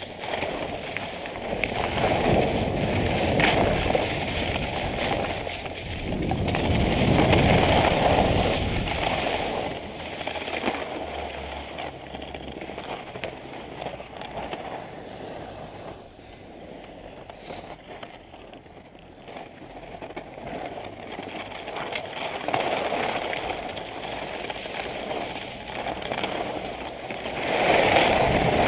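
Skis scraping and hissing over packed snow during a downhill run, with wind noise on the microphone, swelling and fading in waves and quieter through the middle.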